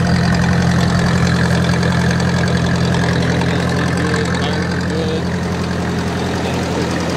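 1955 Ford 850 tractor's four-cylinder gas engine idling steadily.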